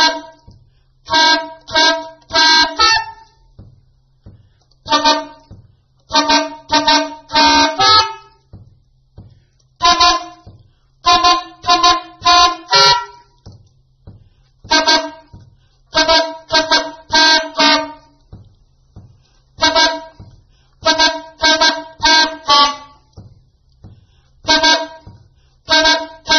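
Soprano saxophone playing short, harsh multiphonic chords: one short blast and then a quick run of three or four, with the phrase repeating about every five seconds.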